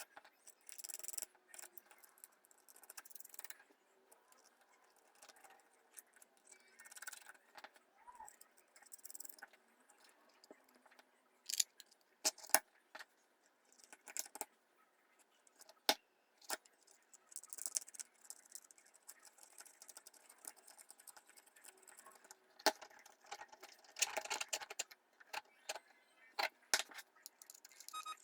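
Small parts being handled during the assembly of a 3D-printed speaker: irregular light clicks, rattles and rustling, with a handful of sharper clicks scattered through.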